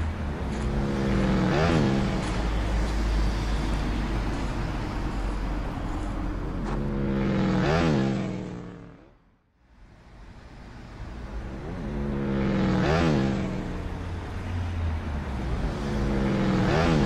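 Road vehicles driving past one after another, four pass-bys, each with its engine note dropping in pitch as it goes by. The sound fades almost to nothing about nine seconds in, then builds up again with the next vehicle.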